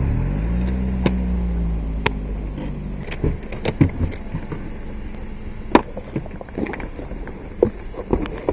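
A taxi's engine running as the car moves off, its pitch rising during the first second and then holding steady. This is followed by a run of knocks and clicks as a hard-shell suitcase is handled into the car's trunk.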